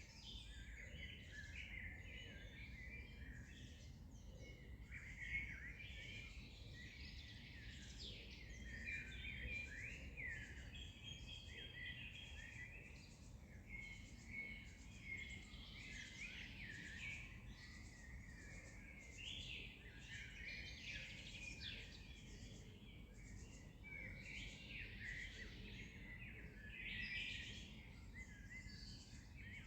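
A chorus of small songbirds chirping and singing, many short overlapping calls throughout, faint, over a low steady background rumble.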